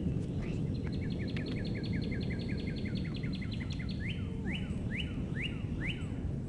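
A songbird singing: a fast trill of about eighteen repeated chirps, then five slower rising whistled notes, over a steady low background rumble.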